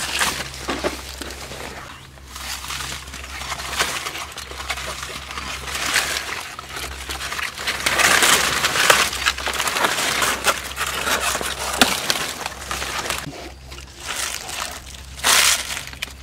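Hands working through wet mud and shallow water, with irregular sloshing and squelching that is loudest about halfway through and again briefly near the end.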